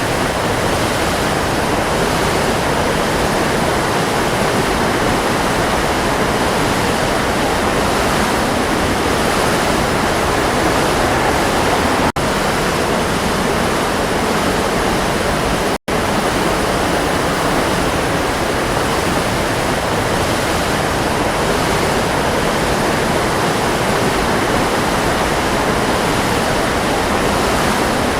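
Waterfall rushing in a steady, loud roar of falling water, cutting out for an instant twice near the middle.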